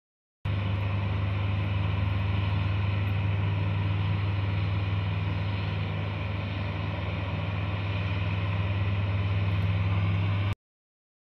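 Steady low drone of aircraft engines heard from inside an aircraft cabin, with a strong constant hum under a noise hiss. It starts and stops abruptly.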